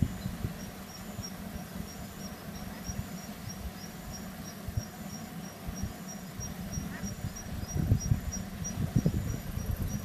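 An insect chirping in a steady series of short, high pulses, about three a second, over a low rumble that swells near the end.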